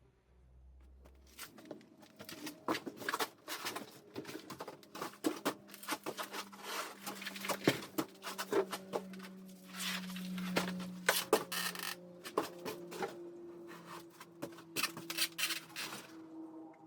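Irregular knocks, rattles and scrapes as old bicycles and clutter are shifted about to pull the bikes out, with a faint steady hum underneath.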